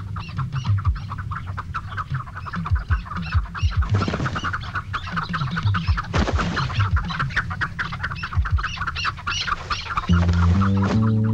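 Chukar partridges calling in fast, repeated chattering clucks, with a couple of brief rushing sounds partway through. Low sustained music notes come in near the end.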